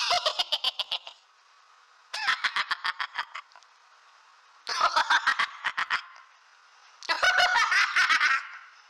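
Cartoon laugh sound effect: a high-pitched, rapid snickering laugh, heard as four separate bursts of quick 'ha-ha' pulses, each about a second long, with short pauses between.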